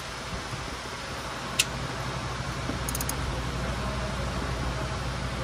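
A few sharp metallic clicks from a long-handled ratchet or torque wrench tightening a starter mounting bolt: one loud click about a second and a half in, then a quick run of three fainter clicks about three seconds in, over a steady background hum.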